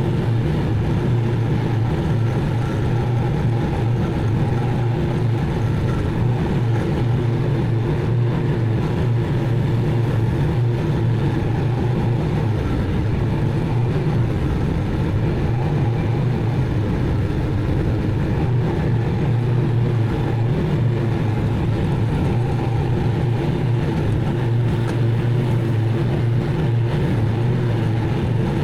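Zero-turn mower engine running steadily at a constant speed while mowing, a continuous low drone.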